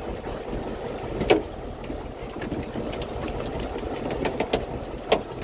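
Fishing boat's engine running with a steady low hum, with a few sharp knocks on top: the loudest about a second in, a cluster of lighter ones later, and another near the end.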